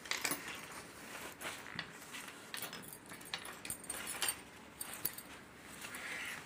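Rustling of a quilted fabric handbag being handled and turned over, with irregular light clinks and taps.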